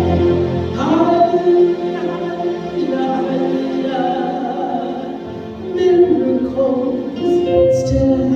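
Gospel choir singing with musical accompaniment, holding long notes.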